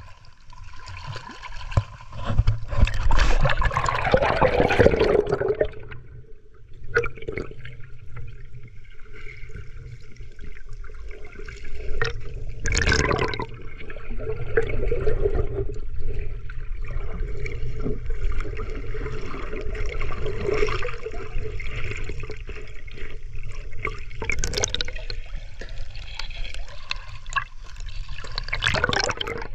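Sea water sloshing and gurgling around a camera that dips below and breaks the surface, heard muffled and bubbly while it is under, over a steady low rumble. A louder rush of water comes a few seconds in, with short splashes near the middle, about two thirds of the way through and near the end.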